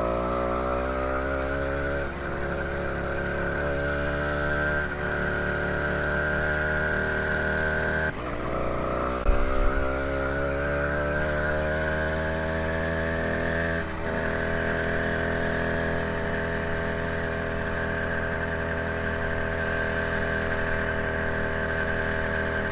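Small 80cc four-stroke bicycle engine kit running under load while riding: the engine note rises as it accelerates, drops off briefly about 8 seconds in, climbs again, then holds at a steady cruising speed, with the drive chain audible underneath.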